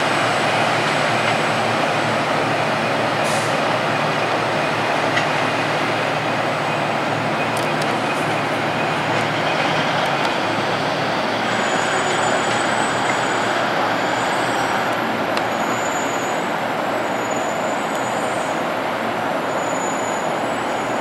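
Three-car Union Pearson Express diesel multiple-unit train pulling away, a steady rumble with a low hum. Faint high-pitched wheel squeals come and go from about halfway through.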